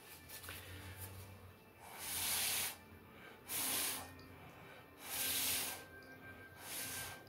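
Heavy breathing close to the microphone: four short, hissing breaths, about a second and a half apart.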